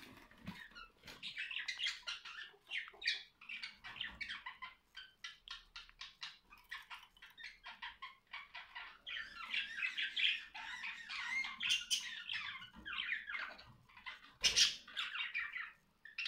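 Budgerigars chattering and warbling in a cage, a quick run of squawks and chirps. There is one short, loud, sudden sound near the end.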